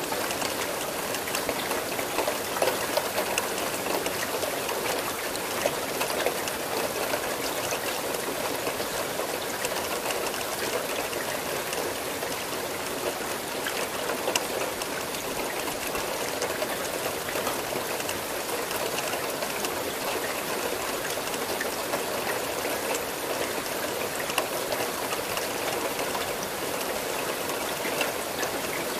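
Steady rain falling, a dense even hiss with many small drop ticks.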